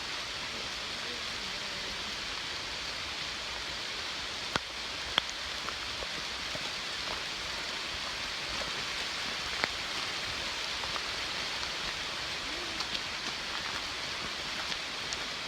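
Steady rain falling, a constant hiss, with scattered sharp taps of single drops; the loudest taps come a few seconds in and near the middle.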